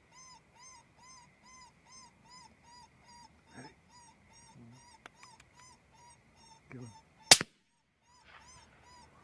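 Electronic predator caller playing a high, rhythmic yipping distress call, evenly repeated about three times a second. A single loud gunshot cracks about seven seconds in.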